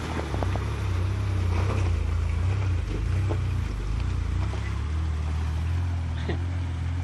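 Four-wheel-drive vehicle engine running, a steady low drone that swells slightly over the first few seconds.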